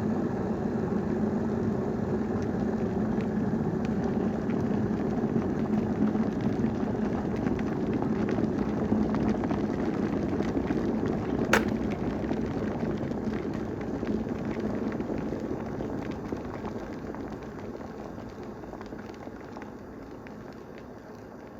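Electric kettle boiling hard with a steady rushing bubble of water. A little past halfway a single sharp click sounds, the kettle's switch turning off at the boil, and the boiling then slowly dies away.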